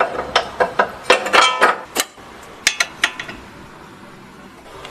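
Metal tools and suspension parts clinking and knocking while a new lower control arm ball joint is fitted: a quick run of sharp metallic clicks, some ringing briefly, in the first two seconds, then only a few scattered clicks.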